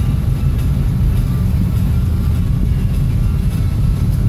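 Steady low rumble of a car's engine and tyres on a snowy road, heard from inside the moving car's cabin.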